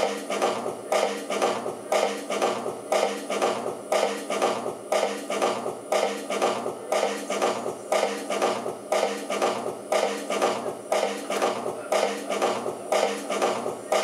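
Rhythmic metallic clinking, about two hits a second, evenly repeated over a steady drone, as part of an experimental electronic music set.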